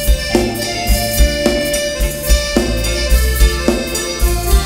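Live Thai ramwong band playing an instrumental passage: keyboard chords over bass and a drum kit keeping a steady beat, the chords changing about once a second.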